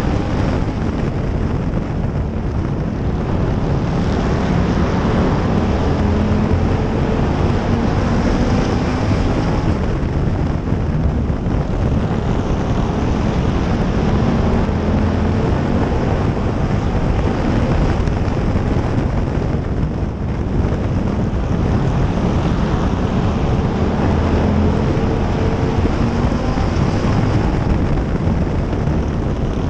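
Stock car engine running hard at racing speed, heard from inside the car, its note rising and falling with the laps.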